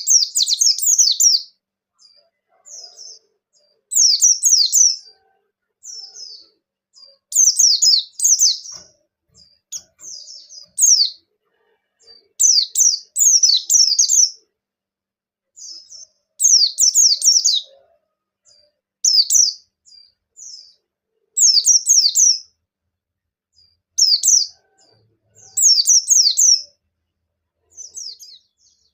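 Pleci bustomi white-eye in full song, giving short bursts of rapid, high chirping twitters about a second long, repeated every two to three seconds.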